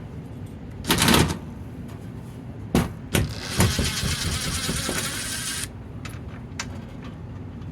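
Hands working on a wall-mounted fire alarm control panel: a brief scraping rush about a second in, a few sharp knocks, then a steady rasping scrape lasting about two seconds.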